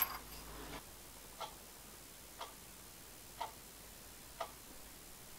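A sharp metal click right at the start as a hand handles a steel part on a bench vise. Then a clock ticks faintly, about once a second.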